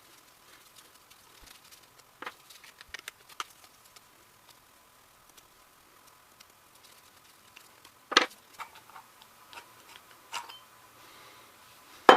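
Scattered light clicks and a few sharp knocks of metal parts being handled while a Ramset 122MD powder-actuated tool is taken apart, loudest near the end.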